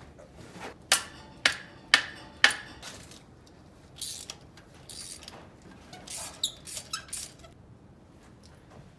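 Socket wrench breaking a corroded spark plug loose from the cylinder head: four sharp squeaks about half a second apart, then softer metallic clinks and scraping as the socket and plug are drawn out of the plug well. The plugs are corroded, which the owner thinks is why they were so hard to get out.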